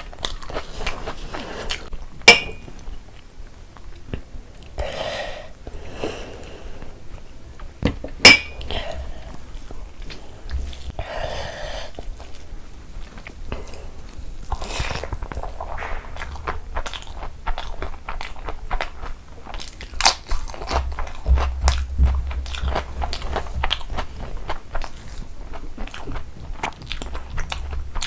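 Close-miked eating: crunchy bites and chewing of Indian food, with irregular crackling clicks throughout and two much louder sharp clicks, about two seconds and eight seconds in.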